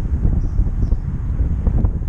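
Wind buffeting the microphone, a loud, uneven low rumble.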